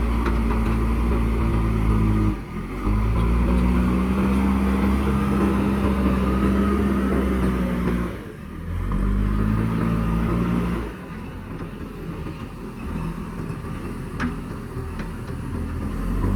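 Diesel engine of a JCB backhoe loader running under load, its pitch rising and falling as the hydraulics work, with two brief drops and a settle to a lower, quieter run about two-thirds of the way through.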